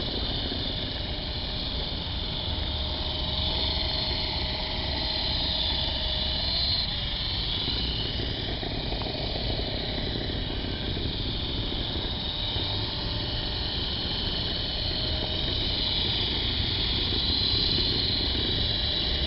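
Big QS 8005 radio-controlled helicopter in flight: a steady electric motor and rotor whine that wavers slightly in pitch.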